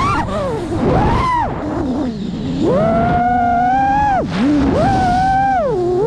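FPV quadcopter's brushless motors whining, the pitch sweeping up and down with throttle and dropping low several times before climbing back.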